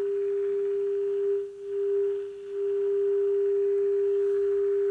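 A steady single-pitch test tone from the Philips 461A valve radio's loudspeaker: the signal generator's modulation tone, received and demodulated by the set during RF alignment. Its level dips twice, about one and a half and two and a half seconds in, as the coil is turned toward a peak.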